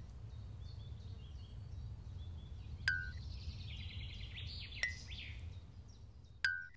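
Faint outdoor ambience of small birds chirping over a low steady rumble, broken three times by a short click with a brief beep, a little under two seconds apart.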